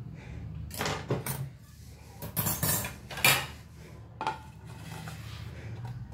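A few separate clinks and knocks of a metal loaf tin and a plate being handled, as the plate is set over the tin to turn a baked brownie out. The loudest knock comes about three seconds in.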